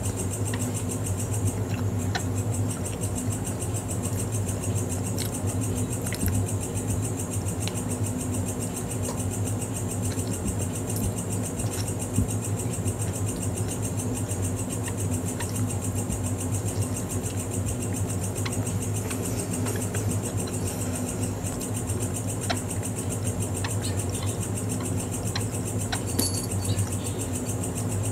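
Steady background hum, low with a high thin whine above it, under occasional soft clicks of chewing.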